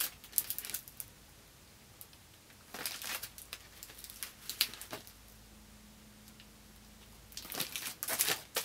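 Sheets of chipboard sticker accents rustling and sliding as they are handled on a table, in several short spells of paper noise with quiet gaps between.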